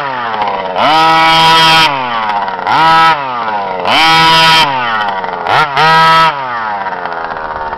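HPI Baja 5B 2.0's two-stroke petrol engine through a DDM Dominator Fast Pipe tuned exhaust, blipped to full throttle about five times, one only a brief stab. Each time the pitch jumps up, holds for under a second, then winds back down toward idle. It settles to a steady idle for the last second and a half.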